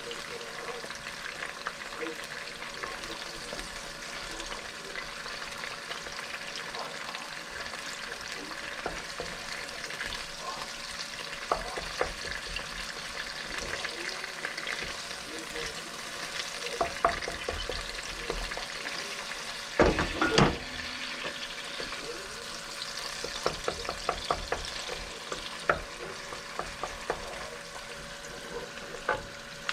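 Food sizzling in a frying pan as it is stir-fried, with a spatula clicking and scraping against the pan throughout. A louder cluster of knocks comes about two-thirds of the way through.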